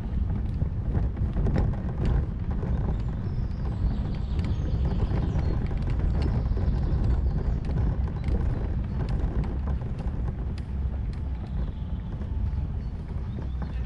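Steady low wind rumble on a GoPro action camera's microphone, with faint irregular clicks of footsteps or handling as the camera is carried along.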